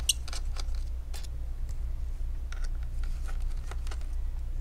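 Scattered small clicks and taps of a Torx T5 screwdriver working the screws of a laptop's back plate, over a steady low hum.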